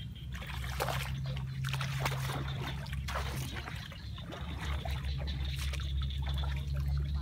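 Footsteps squelching and splashing on a wet mud path and in shallow water, an irregular step about every half second, over a low steady rumble.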